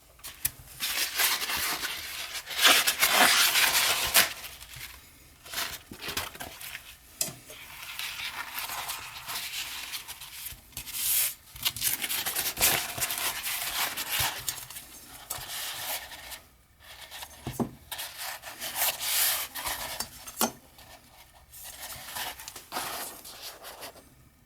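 Irregular rubbing and scraping with light clatter and a few sharp clicks: small hard objects being handled and wiped.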